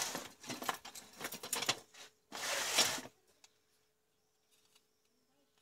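Plastic CFL bulbs and their bases rustling and knocking together as they are handled, in scratchy bursts for about three seconds, then almost nothing.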